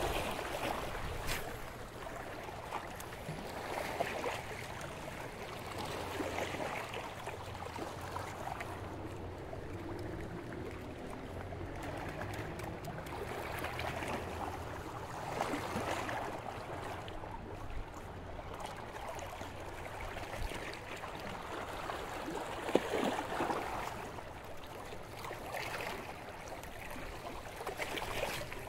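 Lake water lapping and splashing against the shore in small waves, swelling softly every couple of seconds.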